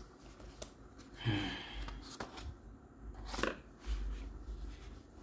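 Sheets of paper being slid and shifted on a desk: a few short rustles and light taps, the two loudest about a second in and about three and a half seconds in.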